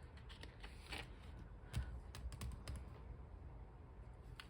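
Faint scattered light clicks and taps with soft paper rustling, from planner pages and inserts being handled and sorted.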